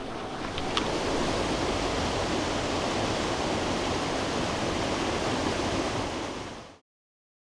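Rushing water of the Oirase Stream, a mountain stream running over rapids and cascades, as a steady rushing hiss that cuts off abruptly near the end.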